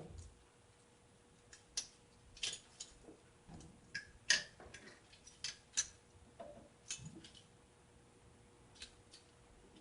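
Scattered light clicks and taps of plastic and metal as a stock CPU cooler is handled and turned over a motherboard to find which way it mounts, about ten irregular knocks with a faint steady hum underneath.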